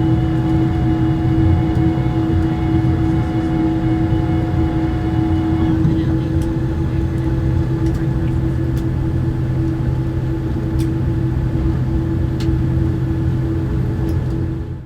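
Cabin noise of a Boeing 787-8 on the ground after landing: a steady, loud hum of the General Electric engines and air systems with several steady tones, some of the higher tones cutting out about six seconds in. Light clicks follow and the sound cuts off abruptly at the end.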